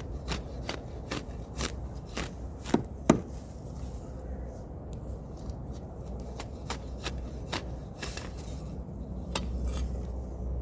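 A shovel blade chopping and scraping into soil, a run of sharp strikes about two a second, with two louder ones about three seconds in.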